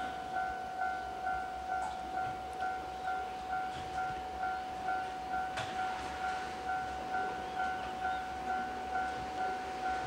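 Japanese level-crossing warning bell ringing, a repeated electronic ding about twice a second: the crossing is closed and a train is approaching.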